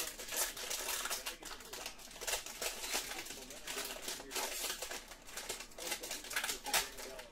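Silver foil trading-card pack wrapper crinkling and rustling as it is handled and pulled open by hand, an uneven run of short sharp crackles.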